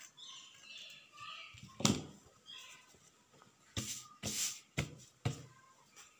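Stainless-steel scissors cutting through cloth: rustling of the fabric as it is handled, then a series of sharp snips, coming about every half-second in the second half.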